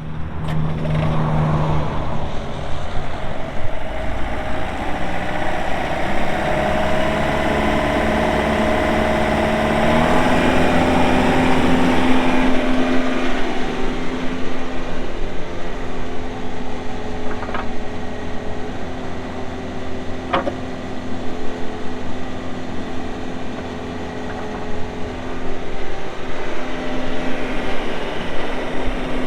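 Yanmar diesel engine of a YB401W wheeled excavator running steadily, its revs stepping up about ten seconds in and easing briefly near the end before coming back up. A few sharp knocks sound in the middle.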